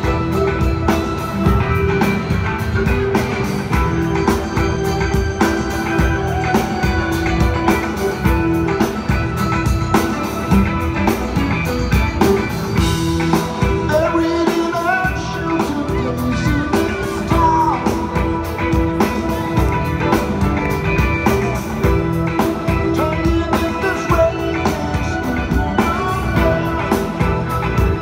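Live rock band playing through a large PA, heard from out in the audience: drum kit, bass and electric guitar over a held sustained note, with a few gliding vocal or guitar lines in the middle.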